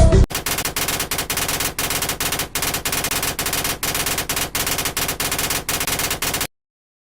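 A sound effect of rapid, rattling bursts, like automatic gunfire, that starts as the music cuts off and stops abruptly near the end.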